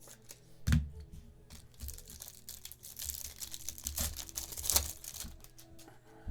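A trading-card pack's foil wrapper being torn open and crinkled by hand, with a thump under a second in as something is set down on the table.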